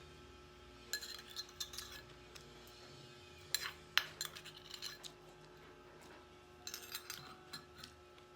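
Light clinks and scrapes of a utensil against a dish, in three short flurries a second or so long each, over a faint steady hum.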